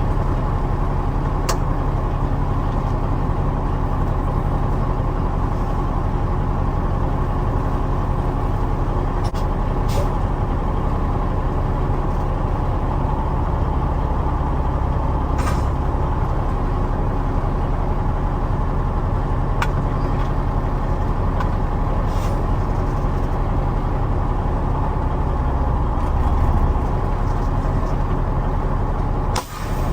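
Semi truck's Cummins ISX diesel engine running steadily, with a few short sharp clicks over the top. The low engine note swells a little twice.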